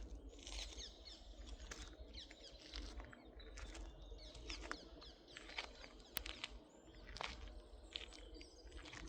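Birds chirping, many short calls in quick succession, over a steady low rumble.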